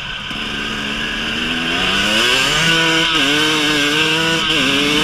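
KTM 300 EXC two-stroke single-cylinder dirt bike engine accelerating, its pitch rising over the first two and a half seconds, then holding steady with two brief dips in pitch.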